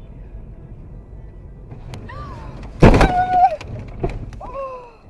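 Car crash inside a dashcam car: a sudden loud impact nearly three seconds in, over low road rumble, with short pitched gliding squeals just before the impact, just after it and again near the end.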